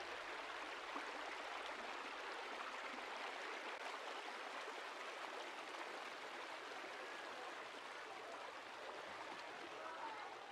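Water of a small river running steadily, an even rushing babble.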